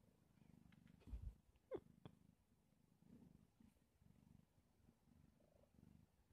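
Domestic cat purring faintly in a slow, even rhythm of breaths, with a dull bump about a second in and a brief squeak falling in pitch just after.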